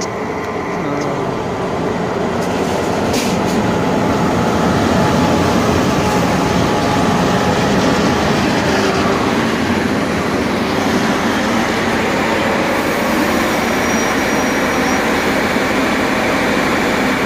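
A passenger train hauled by a DE 22000-class diesel-electric locomotive rolls past on the next track: a loud, steady rumble and clatter of the engine and then the coaches' wheels on the rails. It grows louder over the first few seconds as the train draws alongside.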